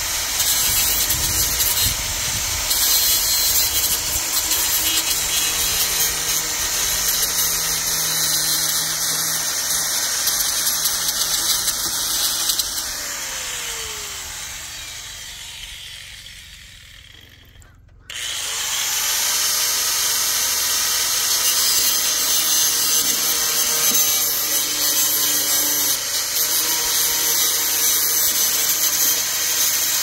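Angle grinder cutting the wire mesh of a nesting box. It runs steadily, winds down with a falling whine and a fading sound from about 13 to 18 seconds in, then starts again abruptly and keeps running.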